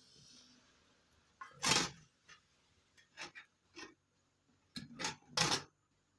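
Handling noise: a string of short knocks and clinks as hard objects are moved and set down, the loudest just under two seconds in and a quick cluster of several more in the second half.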